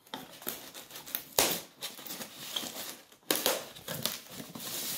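Scissors cutting the clear packing tape that seals a polystyrene foam box, the tape crinkling and tearing in irregular crackles, with a few sharper snaps.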